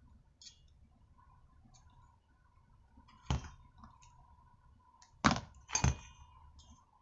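Brush-cutter cylinder and a tube of sealant being handled on a workbench. Three sharp knocks, one about three seconds in and two close together a little past five seconds, with a few small clicks between.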